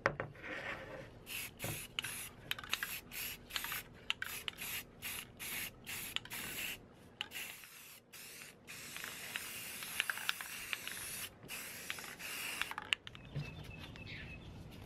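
Aerosol spray-primer can hissing in many short bursts, then in a longer continuous spray, as primer is laid onto 3D-printed sword parts. Near the end it gives way to sandpaper rubbing on the primed part.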